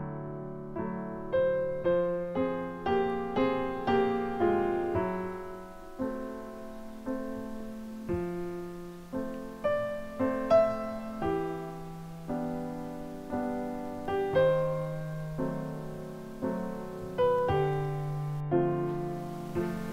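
Slow solo piano music, notes struck one after another and left to fade.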